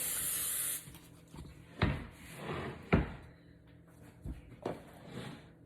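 Aerosol cooking spray hissing, cutting off under a second in, followed by four separate dull knocks and clunks as the can and the iron skillet are handled.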